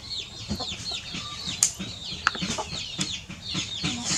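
Birds chirping: many short, high peeps, each falling in pitch, one after another, with a few sharp clicks in between.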